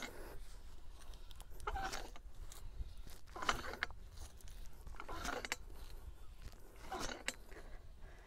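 Post popper jacking a dynamic cone penetrometer's steel rods up out of the borehole: a short metallic scrape and clank with each pump of the lever handle, repeating at a slow, even pace.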